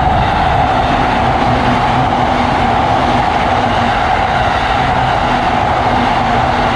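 Electric commuter train running past, a loud steady rumble of wheels on rail with a steady tone above it.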